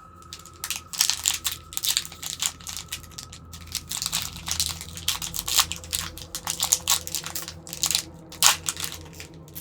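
Foil trading-card pack wrapper crinkling and tearing as it is opened by hand, in dense irregular crackles with a loud crackle near the end.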